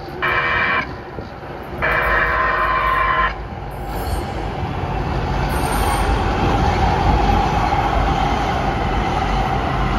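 LA Metro P3010 light rail train sounding its horn, one short blast then a longer one, then running into the station with a steadily rising rumble and a steady whine as it passes close by.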